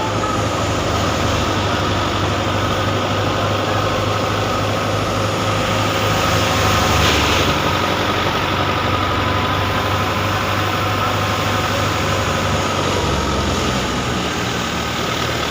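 Farm machinery engine running steadily at the wheat harvest, with a brief louder rush of noise about seven seconds in.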